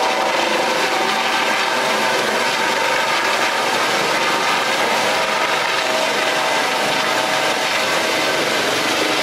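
Search-and-rescue helicopter's turbine engine and rotors running at flight power close by, a loud steady rush of noise with a faint steady whine underneath, as the helicopter lifts above the rooftop helipad and climbs away.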